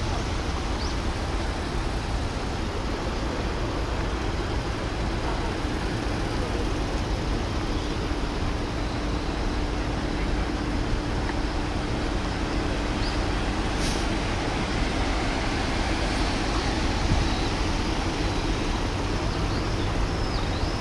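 Steady outdoor city background: a low rumble of distant road traffic, with a faint steady hum in the middle and a single brief click about 14 seconds in.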